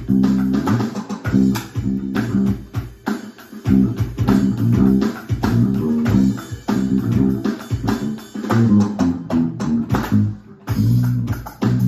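Electric bass guitar playing a repeating funk bass line, with a drum kit keeping time behind it. There is a brief break about ten and a half seconds in before the groove resumes.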